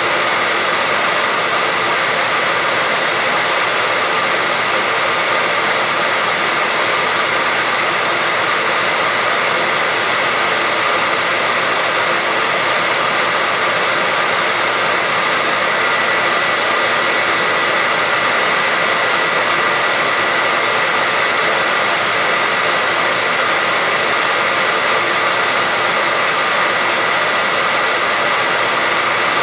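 Hair dryer running steadily: an even airflow rush with a constant high whine from the motor and fan, no change in speed.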